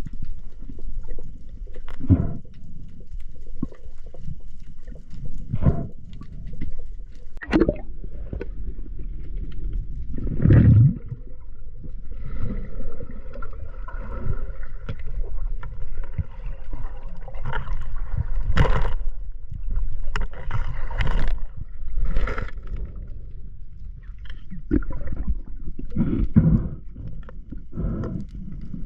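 Water sounds of a spearfisher's camera in the sea: a steady low rush and gurgling of water, broken by irregular knocks and splashes.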